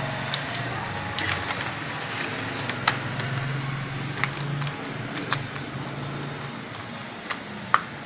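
Plastic control housing of a pedestal fan being handled and pried open: scattered sharp clicks and knocks of plastic, the loudest near the end, over a steady low hum.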